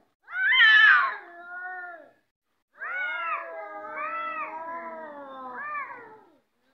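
Domestic cats yowling in a face-off. There is a loud call that falls in pitch, then after a short pause a longer wavering yowl that rises and falls for about three and a half seconds. These are the threat yowls of two cats squaring up to fight.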